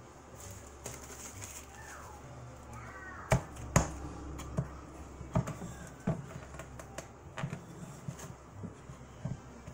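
Scattered light taps and wooden knocks from a wooden tortilla press: hands patting a ball of blue-corn masa flat on plastic sheeting, then the press's lid and lever being brought down on it near the end.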